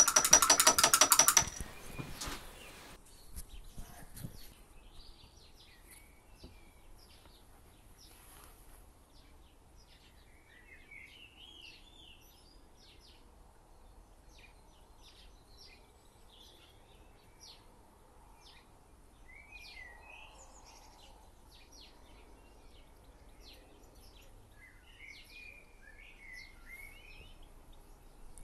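Faint wild birdsong: scattered chirps and short rising whistled phrases, over a quiet steady background. It opens with a loud, pitched, rapidly pulsing buzz lasting about a second and a half.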